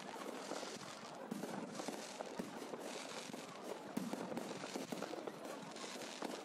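Fireworks display: a dense, continuous crackle of bursting shells and crackling stars, with one sharper bang about four seconds in.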